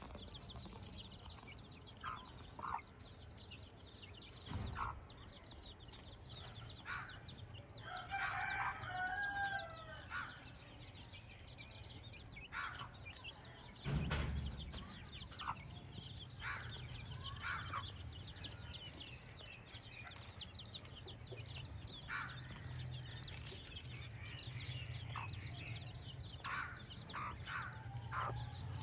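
Domestic chickens clucking, with a rooster crowing once about eight seconds in, over a constant high chirping. There are a couple of dull knocks, the louder one about fourteen seconds in.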